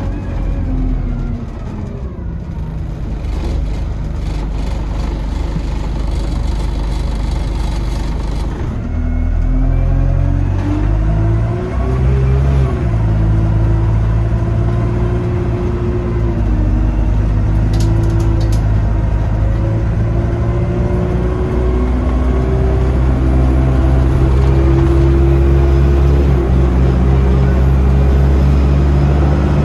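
Dennis Dart single-deck bus engine heard from inside the passenger saloon while the bus is under way. The engine note climbs, drops sharply once about twelve seconds in, then climbs slowly again and grows louder near the end.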